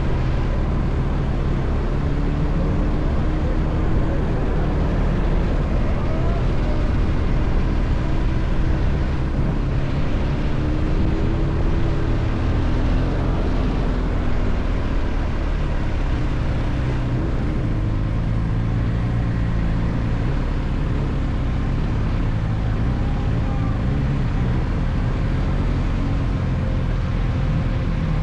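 Car engine running with steady road noise.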